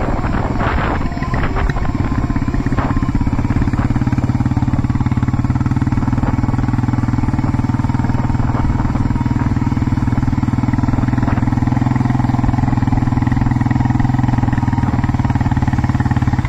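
Suzuki LTZ400 quad's single-cylinder four-stroke engine running at a steady pace close ahead.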